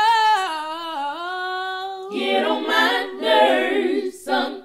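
A woman singing a cappella: one long held note that slides down in pitch, then a busier stretch of layered voices from about two seconds in.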